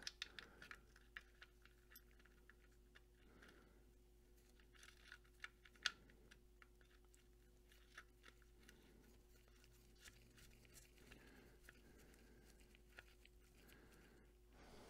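Near silence over a faint steady hum, broken by faint scattered ticks and rustles as a gloved hand threads a motorcycle oil drain plug in by hand. The loudest tick comes about six seconds in.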